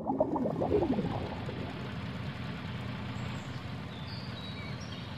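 Cartoon water bubbling and gurgling in the first second or so, under a steady low vehicle engine hum that carries on after the bubbling fades.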